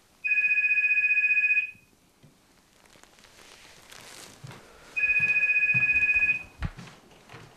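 Telephone ringing twice: two rings of a steady two-tone warble, each about a second and a half long, a few seconds apart.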